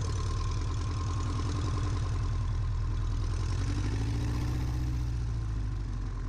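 Cessna 140's four-cylinder air-cooled engine idling while the plane taxis, a steady low drone with even, rapid firing pulses.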